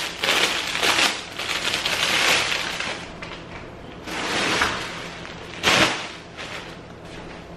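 Clear plastic garment bag crinkling and rustling in bursts as a shirt is unwrapped by hand. There is a short, louder crackle just before six seconds in.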